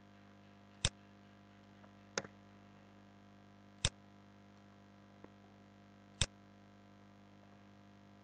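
Four sharp clicks of a computer mouse, a second or two apart, the second one doubled, over a steady low mains hum.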